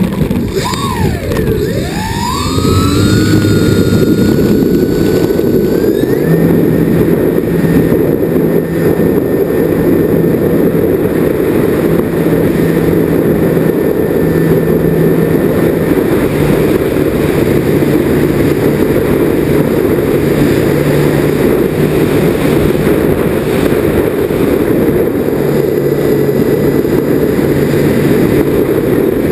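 Twin motors and propellers of a radio-controlled model plane, heard from the onboard camera: over the first few seconds the whine dips and then climbs in pitch as the throttle opens for takeoff, and it gets louder. The motors then run at a steady high pitch with a loud rushing drone through the climb.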